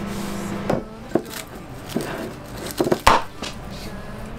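A steady hum stops under a second in, followed by a handful of knocks and clinks as a glass bowl of melted butter, covered in plastic wrap, is handled and set down on a wooden table; the loudest knock comes about three seconds in.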